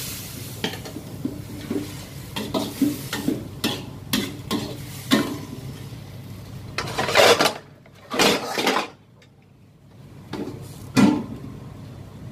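Metal ladle clanking and scraping against a wok as noodles are stir-fried, in a quick run of knocks. About seven and eight seconds in come two loud sizzling bursts as gravy is poured into the hot wok, and a sharp metal clank near the end as the lid goes on.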